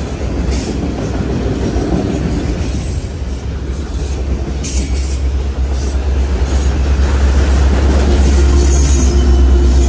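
Freight train passing close by: autorack cars rumbling and rattling over the rails, with a few brief high wheel squeals. A deeper diesel engine drone builds over the last few seconds as a mid-train locomotive comes past.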